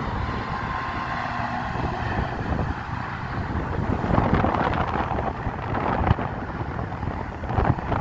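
Freeway traffic of cars and semi trucks running, with wind rumbling on the microphone and swelling in a few gusts.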